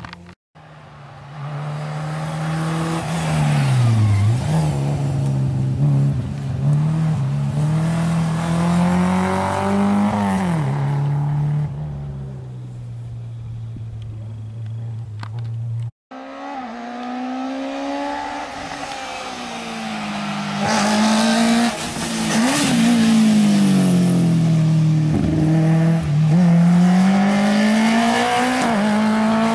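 Rally cars at full attack on a special stage: small four-cylinder hatchback engines revving hard, the pitch dropping on braking and downshifts and climbing again through the gears. Two cars pass one after the other.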